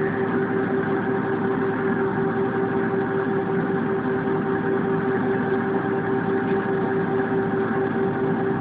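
Steady jet engine drone heard inside an Airbus A320 cabin, a constant rush of noise with a steady hum tone running through it.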